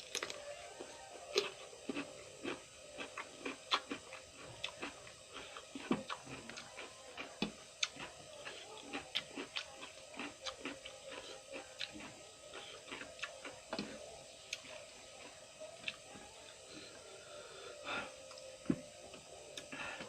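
Close-up chewing of crunchy raw vegetables: irregular crisp crunches and mouth clicks, several a second, over a faint steady hum.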